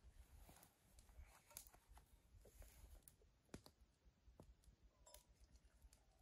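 Near silence in a small enclosed space, with faint scattered clicks and taps.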